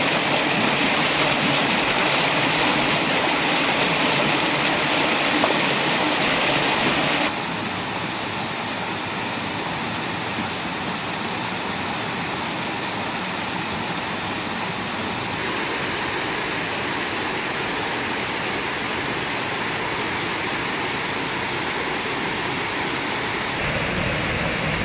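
Mountain stream water rushing over rocks, a steady rushing noise that changes suddenly in loudness and tone three times as recordings of different streams are cut together. It is loudest in the first few seconds, and near the end it gives way to a waterfall plunging into a pool.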